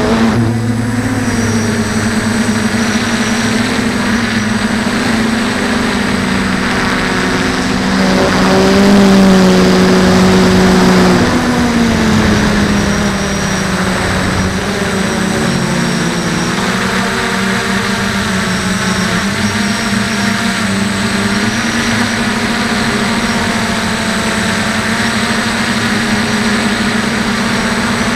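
DJI F450 quadcopter's electric motors and propellers whining steadily. The whine gets louder and higher about eight to eleven seconds in, then dips briefly around fifteen seconds as the motor speed changes.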